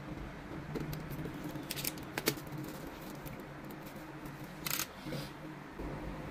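Clear plastic shrink-wrap being slit with a utility knife and peeled off a cardboard box, giving a few short crinkles and crackles, the sharpest about two seconds in and another cluster near the end.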